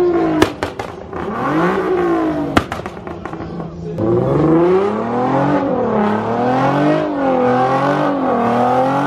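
Car engine revving up and down repeatedly, with a few sharp cracks in the first three seconds. From about four seconds in it runs louder, its pitch rising and falling in waves.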